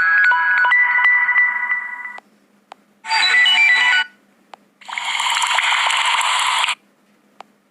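Ringtone previews from a phone ringtone app played one after another. An electronic melody ends about two seconds in. After a short gap a brief tune of notes plays, then a noisy, hissing sound effect lasts about two seconds and stops.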